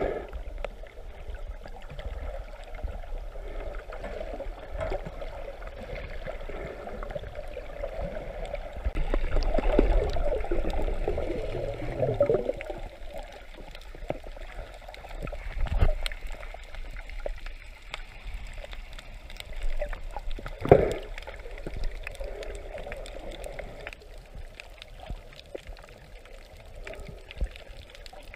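Muffled water sloshing and gurgling picked up by a camera held underwater, with a louder stretch of bubbling about a third of the way in and a couple of sudden thumps later on.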